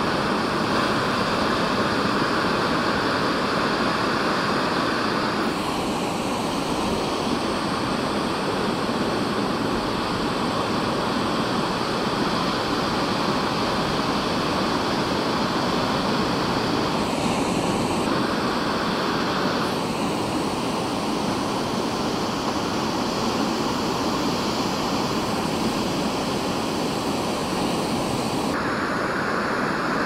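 Ocean surf breaking on a beach: a steady wash of noise with no distinct single crashes, its tone changing abruptly a few times.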